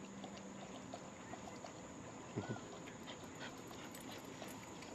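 A dog gives one short whimper about halfway through, over faint open-air background noise.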